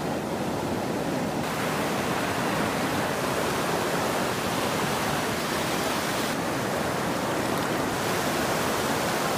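Steady rush of a fast river flowing over rocks.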